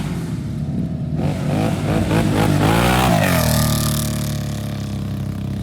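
Can-Am ATV engine breathing through a Muzzy exhaust, idling, then blipped through a run of quick revs from about a second in. The revs fall back to idle around three seconds. This exhaust has a deep tone.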